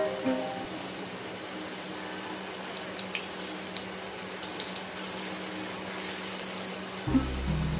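Kachori deep-frying in hot oil: a steady sizzle with a few scattered crackles as oil is spooned over it.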